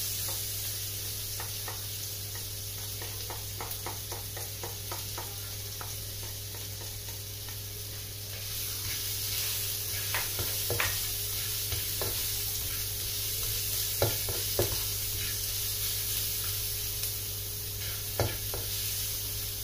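Minced garlic sizzling in melted butter in a nonstick frying pan, the sizzle growing louder about eight seconds in. A plastic spatula stirs and taps against the pan now and then.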